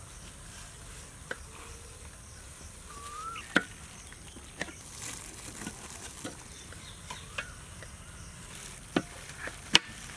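Chef's knife chopping bell peppers on a wooden cutting board: irregular sharp knocks as the blade strikes the board, about eight of them, over a steady background of insects.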